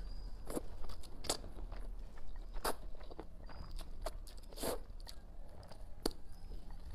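Close-up mouth sounds of a person slurping and chewing Nanchang mixed rice noodles: a series of short wet smacks and slurps, about one every second or so.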